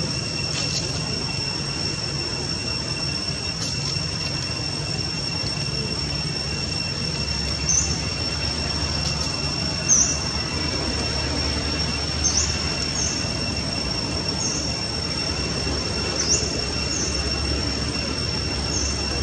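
Steady high-pitched insect drone, one unbroken tone with a lower companion tone, over a low background rumble. Short high chirps come every second or two from about eight seconds in, the sharpest near ten seconds.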